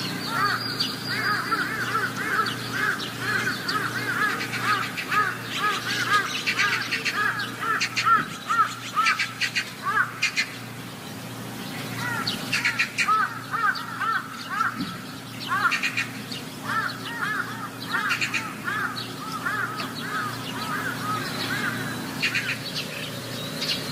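Birds calling: long runs of short, arched chirping notes repeated several times a second, breaking off for about a second near the middle, over a steady low hum.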